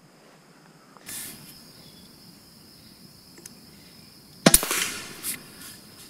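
Umarex Origin .25-calibre PCP air rifle firing one shot about four and a half seconds in: a single sharp crack, followed by a few fainter knocks.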